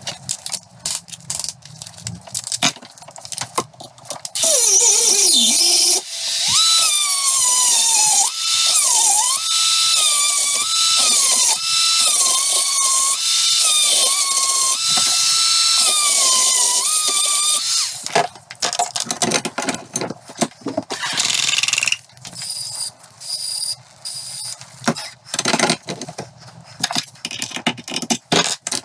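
Dremel rotary tool with a carbide burr grinding through the steel casing of a needle-roller bearing in a classic Mini's top suspension arm: a loud, high whine from about four seconds in to about eighteen seconds in, its pitch dipping again and again as the burr bites. Before and after the grinding there are scattered clicks and taps, with hammer taps near the end.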